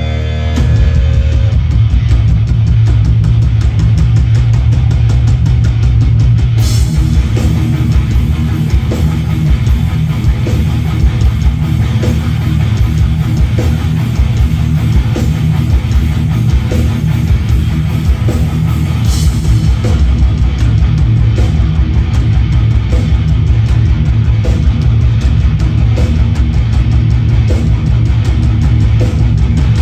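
Heavy metal band playing live: loud distorted electric guitars over a steady, driving drum beat.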